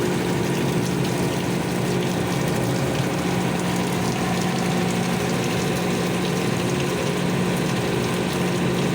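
Very heavy rain falling steadily: a dense, even hiss with a low rumble beneath it.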